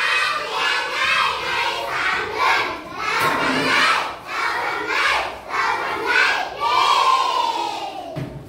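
A class of young children chanting loudly in unison, one short syllable about every half second, ending on one long falling syllable, as in a spelling-out reading drill.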